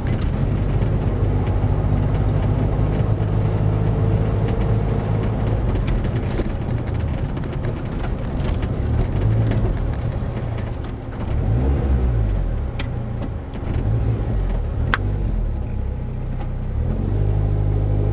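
Competition car's engine running at low speed, heard inside the cabin, with a dip and then a brief rise in revs a little past halfway.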